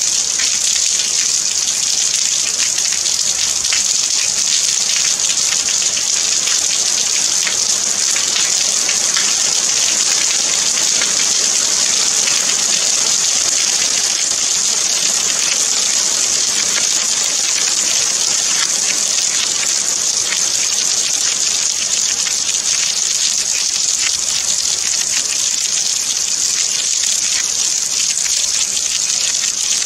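Steady rain: an even, high hiss of many small drops falling, unchanging throughout.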